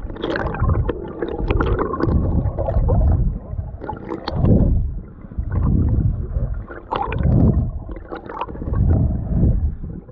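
Muffled water sloshing and gurgling heard from a GoPro held underwater in its waterproof housing, coming in low surges about every second and a half, with scattered small clicks.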